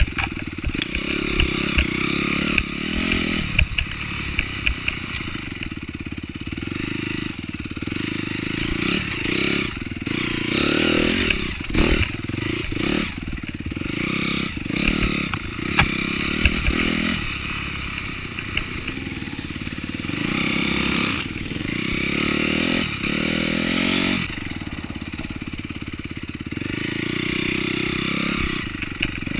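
Honda CRF250R's single-cylinder four-stroke engine being ridden off-road, the throttle rising and falling, with frequent knocks and clatter from the bike over the ground.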